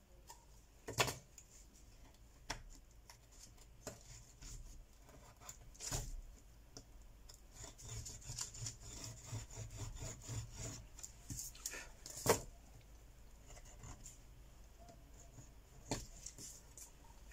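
A hand tool scraping and rubbing against a smartphone's mid-frame, most steadily in the middle of the stretch. Four sharp clicks and taps of handling stand out, the loudest a little after halfway.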